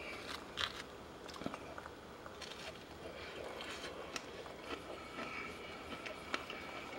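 Faint crackling and rustling of crisp battered fried fish fillets being handled and broken apart on a paper towel, as scattered small clicks.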